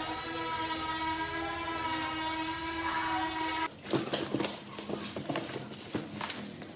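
A steady electronic tone with overtones that cuts off suddenly about three and a half seconds in, followed by irregular clicks, taps and rustles of a toy box and its packaging being handled.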